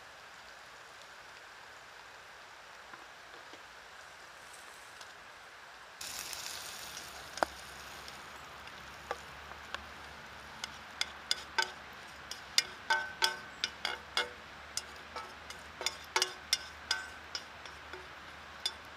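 Steady hiss of light rain. About six seconds in the sound cuts abruptly to a run of irregular light metallic clinks, each ringing briefly.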